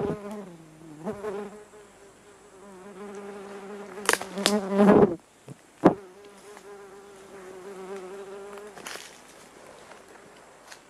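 A flying insect buzzing close to the microphone, its wavering drone circling nearer and farther. It swells loudest and shifts in pitch as it passes about four to five seconds in, then fades out near the end. There is a single sharp click about six seconds in.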